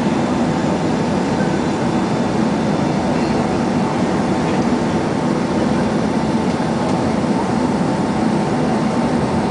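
Steady cabin noise of a Boeing 767 airliner in flight: engine and airflow noise, unchanging, with a faint steady hum running through it.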